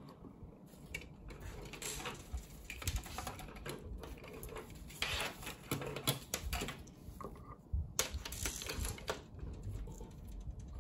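Hands handling a small plastic electronics enclosure and its wiring: irregular clicks, taps and rustles.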